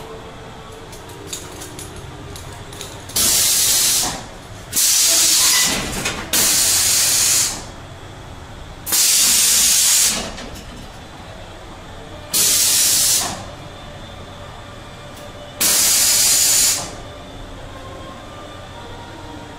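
Compressed-air jets of a haunted-house scare effect hissing in six loud bursts, each about a second long, a second or two apart.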